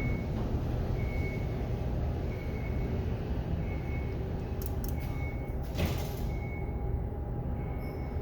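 Steady low background rumble with a short, high electronic beep repeating about every 1.3 seconds, and a brief rattle about six seconds in.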